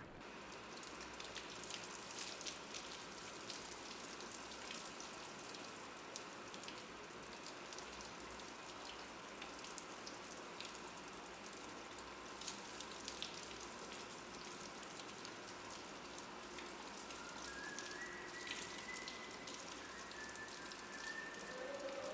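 Shower running in a tiled shower stall: a steady hiss of spray with many sharp spatters and drips as the water hits the tiles and a body.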